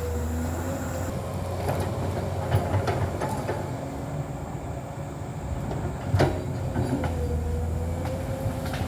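Komatsu PC200 hydraulic excavator working: the engine runs steadily under a steady whine, with scattered clanks and one louder knock about six seconds in.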